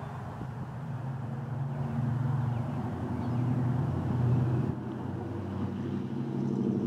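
A motor vehicle's engine running steadily with a low hum, growing louder about four seconds in, easing briefly, then swelling again near the end.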